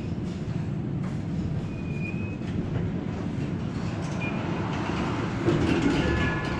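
Tatra KT8D5 articulated tram running along the track: a steady low rumble of wheels on rail, with a couple of brief, faint wheel squeals.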